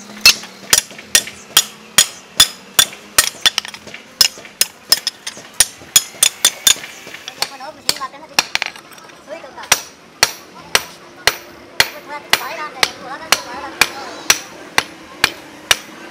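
Hand hammer striking a leaf-spring steel cleaver blade on a steel anvil block: sharp, ringing blows at a steady pace of about two a second, pausing for about two seconds near the middle before resuming.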